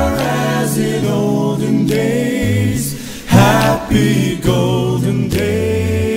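Background music: a vocal group singing in harmony a cappella, with held notes over a low bass part.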